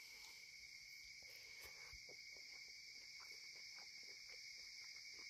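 Faint, steady night-time chorus of crickets, a continuous high-pitched trill, with soft scattered clicks and smacks of a person eating by hand.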